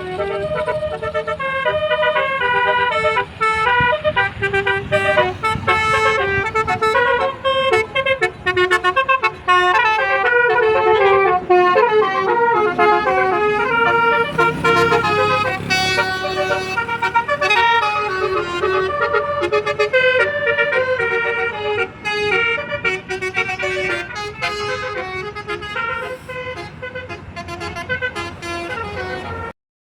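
Telolet bus horn, the multi-tone air horn of a DAMRI bus, playing a fast, continuous melody of stepping notes. It cuts off suddenly near the end.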